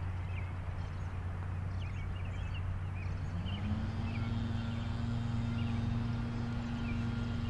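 A steady low engine hum with small birds chirping over it. About three seconds in, a second engine rises in pitch and then holds steady.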